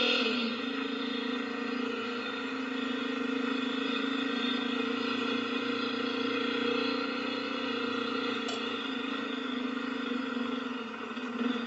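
2021 Honda CRF250F dirt bike's air-cooled single-cylinder four-stroke engine running at a steady pace under way, its pitch easing down slightly at the start and dipping briefly near the end.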